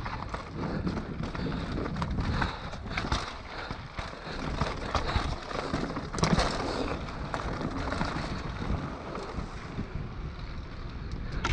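Mountain bike descending a rocky dirt trail: wind rushing over the microphone, tyres rolling over dirt and stone, and the bike rattling over bumps with frequent sharp knocks.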